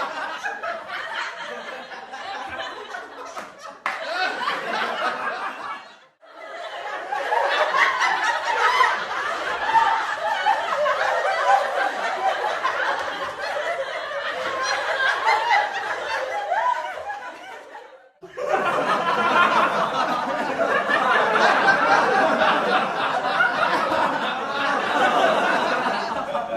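Canned laughter from a laugh track: a studio audience laughing together. It drops out briefly about six seconds in and again about eighteen seconds in, starting up again each time.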